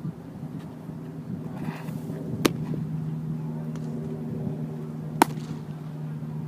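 Two sharp cracks of a baseball striking, about two and a half seconds apart, over a steady low hum.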